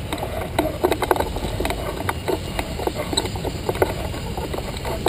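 Steady low wind rumble on a hang glider's frame-mounted camera, with irregular light knocks and rattles as the glider is walked across the sand.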